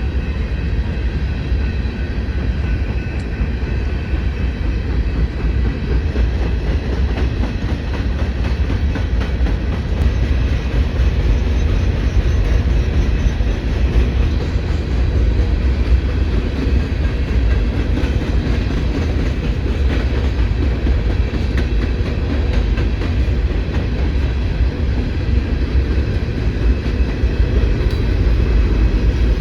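Freight cars of a long mixed train rolling past: a steady low rumble of wheels on rail, with faint clicks of wheels crossing rail joints.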